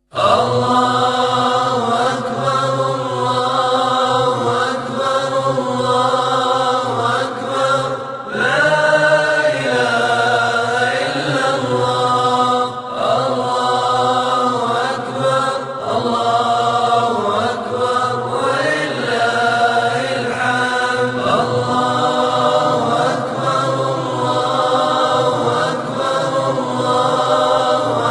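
Background vocal chant music: several voices sing long, gliding lines together over a steady low drone, continuing without pause.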